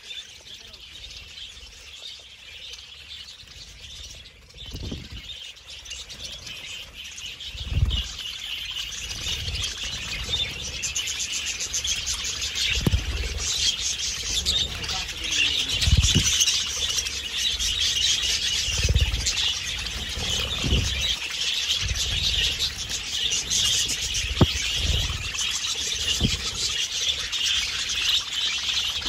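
A flock of budgerigars chattering and chirping in a dense, continuous warble that grows louder about a third of the way in. Occasional short low thumps break in.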